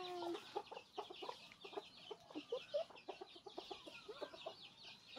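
Backyard chickens clucking softly in short, irregular notes, several a second, over a continuous high peeping of chicks.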